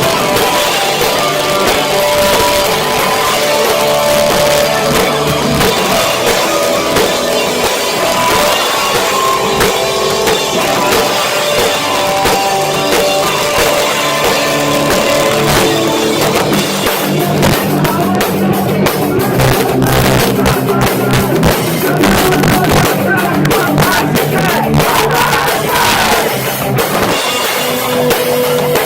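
Live hardcore band playing loudly, with distorted guitars, pounding drums and shouted vocals, captured in poor, muddy sound by a cheap cell phone microphone.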